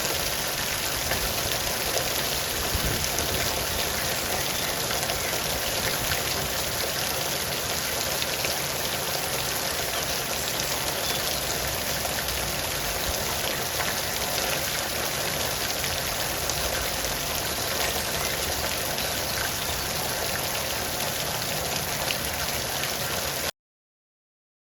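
Steady rainfall with many small drop hits, cutting off suddenly near the end.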